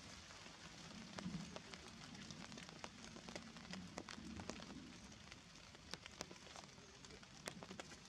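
Faint patter of water drops falling on wet leaves and the forest floor: scattered, irregular ticks over a soft hiss.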